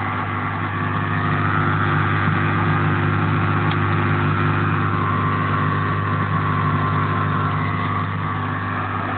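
Beko DW663 dishwasher's drain pump running steadily with a low electric hum and the rush of water being pumped out, the drain phase at the start of a wash program.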